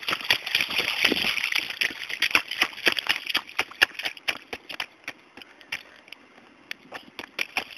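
Small child's rubber rain boots splashing and stomping through a shallow street puddle: quick steps a few times a second with water sloshing. The splashing thins out for a couple of seconds past the middle and picks up again near the end.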